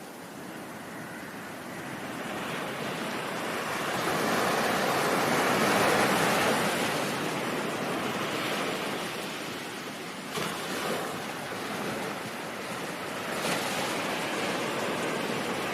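Ocean surf washing ashore: a wave swells and breaks about six seconds in and slowly recedes, with two smaller breaks later.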